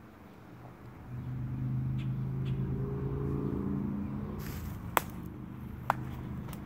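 An engine running steadily, coming up about a second in and easing off a little later, with two sharp clicks near the end.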